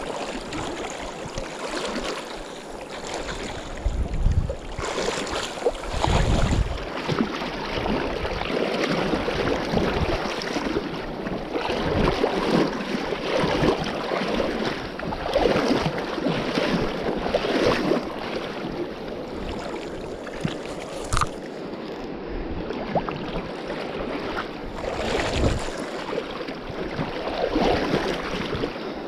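Shallow river water rushing and splashing close by, rising and falling, with a few low thumps on the microphone.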